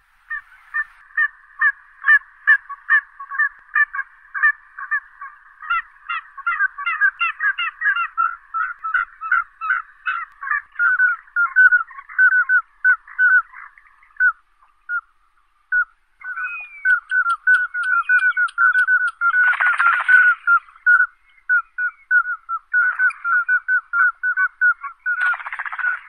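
Common scoter calling: a long run of short, clear piping notes, several a second, at times in two overlapping series. Two brief harsher, noisy bursts break in, about twenty seconds in and near the end.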